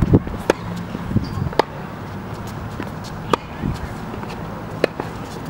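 Tennis balls being struck by rackets and bouncing on a hard court: about five sharp pops spaced one to one and a half seconds apart, as in a baseline rally.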